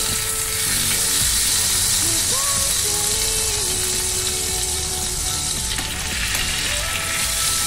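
Ribeye steak frying in hot oil and pan juices with garlic cloves in a nonstick pan, a steady sizzle while it is held on its edge to sear the sides.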